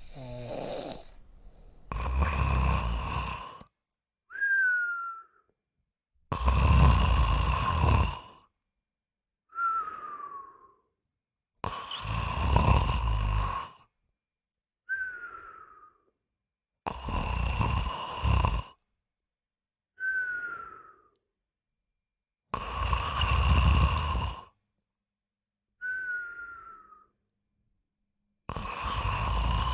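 Snoring in a slow, regular rhythm: a rough snore lasting about two seconds comes roughly every five seconds. Each snore is followed by a shorter breath with a thin whistle that falls in pitch.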